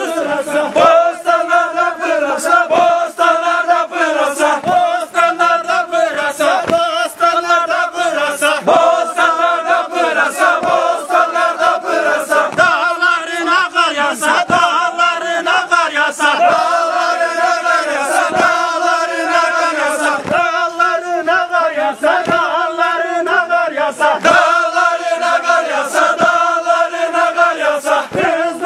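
Davul-zurna folk music playing for a halay line dance: a shrill, steady zurna melody over recurring davul drum strokes.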